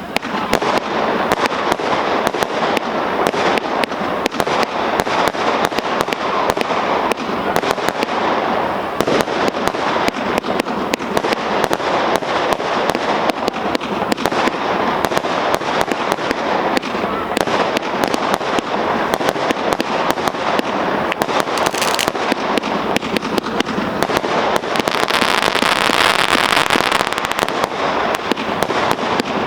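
GBV-Weco G-Force 6000 fireworks compound, a 432-shot cake of 12 linked batteries, firing a rapid, continuous stream of shots and bursts without a break, growing busier and more crackling near the end.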